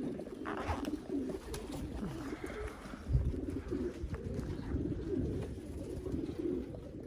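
Several racing pigeons cooing together, a steady overlapping burble, with a short low thump about three seconds in.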